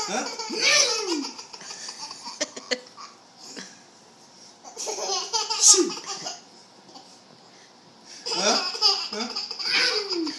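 A small child laughing hard in three bouts, one at the start, one midway and one near the end, laughing at someone's sneezes.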